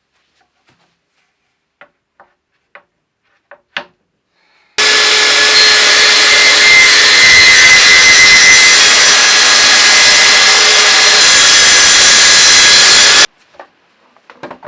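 A few light knocks, then a track saw running and cutting along the edge of a wooden top board for about eight seconds, a steady loud cutting noise with a high whine that starts and stops abruptly. The cut joints the board edge straight for gluing.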